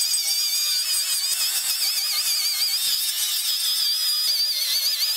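HPT MA20-AG185N 20V cordless angle grinder with a grinding disc pressed hard into a steel beam, grinding under heavy load. A steady, harsh grinding hiss with the motor's whine wavering up and down in pitch as the load shifts.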